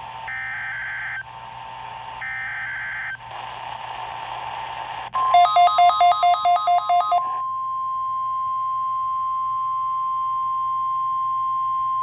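Emergency Alert System SAME header data bursts, a harsh warbling screech sent twice with short pauses. About five seconds in the weather radio's long steady warning alarm tone begins, with a quick run of about eight loud electronic beeps over its first two seconds.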